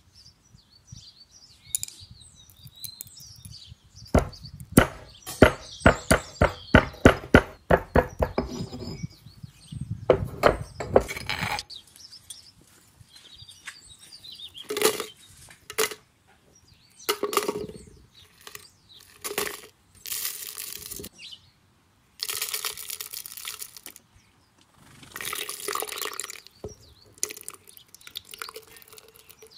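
Stone pestle pounding hard whole spices such as cinnamon bark and dried turmeric in a stone mortar: a quick run of sharp strikes, about four a second, lasting several seconds, followed later by scattered scraping and clattering bursts.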